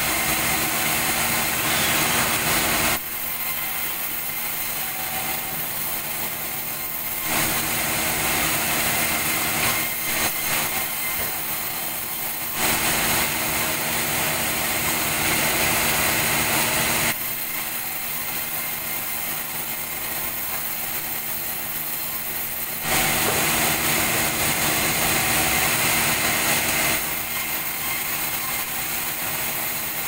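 Vertical band sawmill running steadily as its blade cuts through a durian log. The saw grows louder during stretches of cutting lasting several seconds, which alternate with quieter stretches of the saw running between passes.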